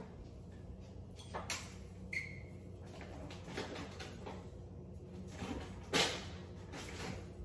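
Faint off-camera knocks and clunks of a refrigerator door being opened and shut and a cup being put inside. There is a short squeak about two seconds in, and the loudest thump comes about six seconds in.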